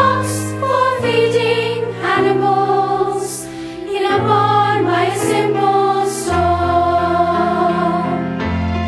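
Voices singing a song from a Christian musical over instrumental accompaniment, the melody moving over held bass notes that change every second or two.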